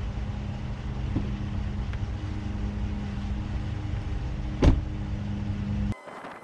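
Ram pickup truck's engine idling steadily, with its door slamming shut once about two-thirds of the way through. The sound cuts off abruptly near the end.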